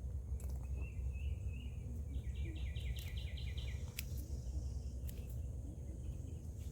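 Outdoor field ambience: a short warbling bird call about a second in, then a rapid run of about eight evenly spaced chirps, over a steady low rumble. A sharp click comes near four seconds in.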